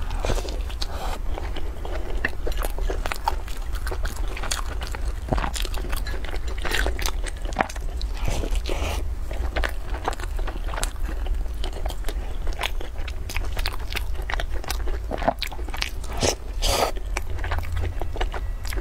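Close-miked eating: bites and chewing of a crisp deep-fried pastry dipped in thick white cream, many short crunches and wet mouth sounds at an irregular pace over a steady low hum.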